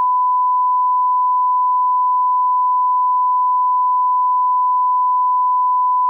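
Television test-pattern tone: a single steady, unbroken beep at about 1,000 Hz, the standard line-up tone that goes with color bars.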